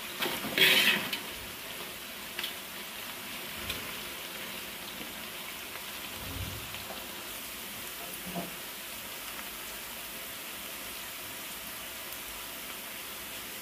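Sliced onions sizzling steadily in hot oil in a large aluminium pot as they are browned, with a metal spoon scraping and clattering against the pot, loudest about a second in, then a few lighter knocks.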